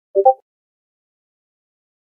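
A short two-note electronic chat-message pop, about a quarter second long, the second note higher than the first.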